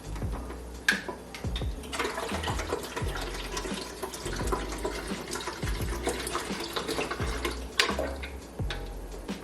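Water running from a tap for about six seconds, stopping near the end, over background music with a deep bass beat about once a second.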